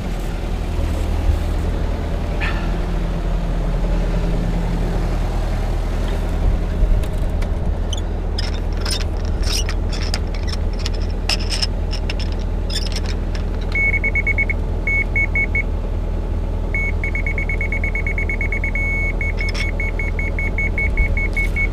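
Yanmar excavator's diesel engine running steadily, with a run of clicks and knocks in the middle. From about fourteen seconds in, a high electronic beeping starts, first in short groups, then fast and nearly continuous, about five beeps a second, near the end.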